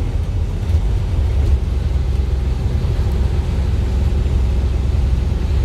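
Steady low rumble inside the cabin of a moving vehicle: engine and road noise while driving at speed.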